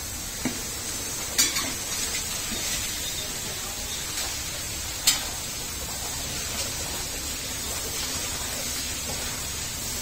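Milk squirting from a cow's teats into a small steel cup during hand milking: a steady spraying hiss, with a few sharp clinks, the loudest about five seconds in.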